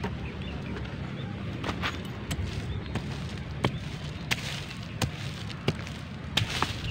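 Small hand hoe chopping into dry red soil, about ten sharp, irregular strikes spaced roughly half a second to a second apart, starting about a second and a half in. It is digging down to a target that the metal detector has just signalled.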